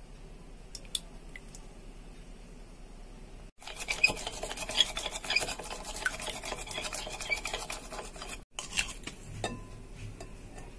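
Metal wire whisk beating raw eggs in a glass bowl: rapid clinking against the glass and the sloshing of egg for about five seconds in the middle, starting and stopping abruptly, with a few single taps before and after.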